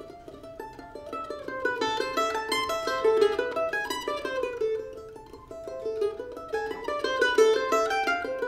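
F-style mandolin played solo in quick picked runs of single notes. It is softer near the start and again around the middle, and swells up in between.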